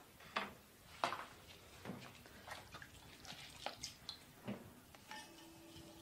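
Soft scattered taps, knocks and wet squishes from hands handling a freshly wire-cut, wet clay bowl as it is lifted off the hump and set down. A faint steady hum begins near the end.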